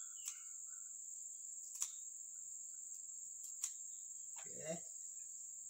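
Steady high chirring of crickets, with sharp snips of scissors cutting leaves into strips, three times about a second and a half apart. A short low vocal sound comes near the end.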